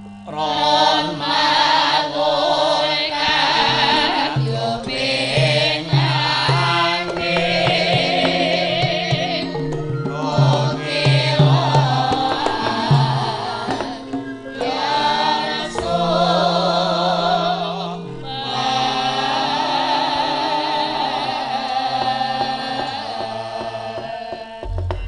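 Javanese gamelan ensemble playing with a vocalist singing a wavering melodic line over steady, held metallic tones. The music briefly thins twice and drops away near the end.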